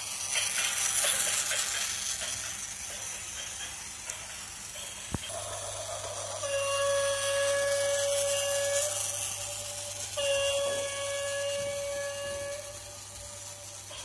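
Fenfa toy train set's DF4 diesel locomotive model running on plastic track with a high whirring hiss, then its electronic horn sound effect giving two long steady blasts of about two seconds each.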